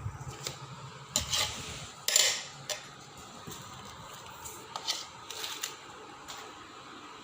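Metal serving utensils clinking and scraping against a pot and plates as biryani is dished out: a handful of separate clinks, the loudest about two seconds in.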